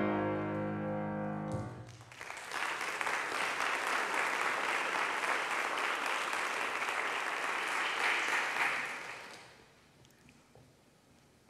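The song's last chord on piano rings out and fades, then a congregation applauds for about seven seconds before the clapping dies away.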